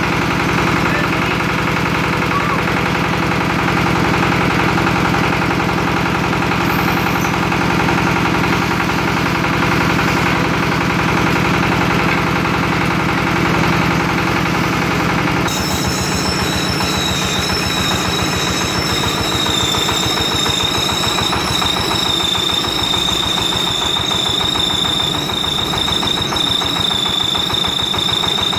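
Small horizontal diesel engine driving a winch, running steadily. About halfway through the sound changes abruptly and a steady high whine joins the engine.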